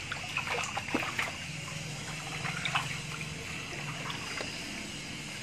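Water trickling and dripping, with small splashes and short wet ticks as hands scrub lather through a small dog's soaked coat.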